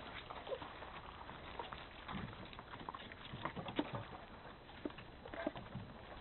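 Bernese Mountain Dog puppy moving over gravel and nosing among stainless-steel food bowls: scattered faint clicks, scuffs and soft knocks.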